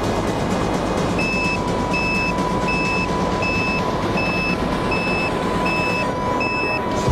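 Steady rush of wind and motor noise from a low-flying radio-controlled airplane. From about a second in, an electronic beep repeats evenly about eight times, roughly once every 0.7 s, over a steady high tone.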